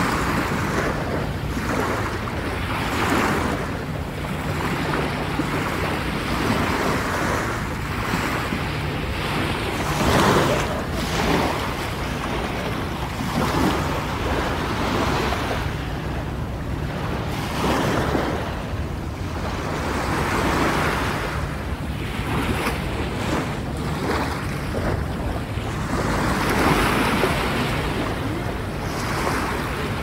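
Sea waves breaking and washing up on the shore at the water's edge, the wash swelling and falling back every few seconds.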